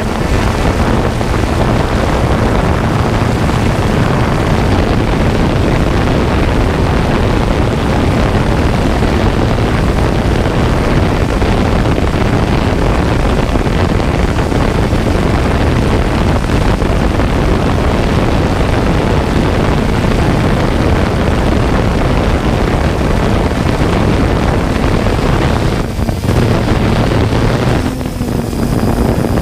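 3DR Solo quadcopter in flight: a steady dense whir of its motors and propellers mixed with wind buffeting on the onboard camera's microphone, with two short drops in level near the end.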